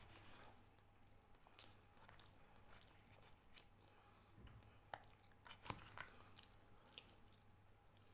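Faint sounds of a person eating roasted pork and rice: quiet chewing and a scatter of brief light clicks, over a faint steady low hum.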